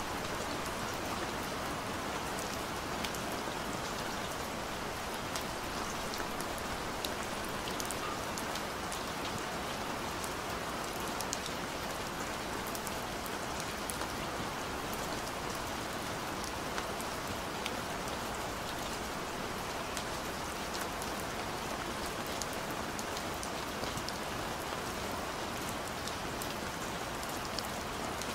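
Steady rain: an even hiss of falling rain with scattered sharp drop ticks.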